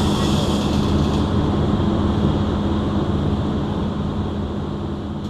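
Steady machinery hum of a welding shop, with a constant low tone and a high hiss that drops away about a second in, easing off slightly near the end.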